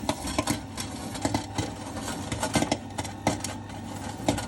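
Popcorn popping in the kettle of a home popcorn maker: irregular sharp pops, several a second, over the machine's steady hum.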